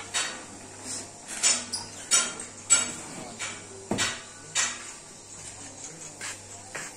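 Irregular metallic clinks and taps of hand tools and bolts on a steel drilling-rig frame being unbolted, the loudest knock about four seconds in.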